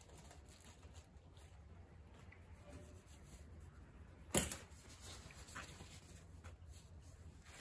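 Faint handling of parts and tools at a steel workbench: a few small ticks and one sharp knock about four seconds in, over a low steady hum.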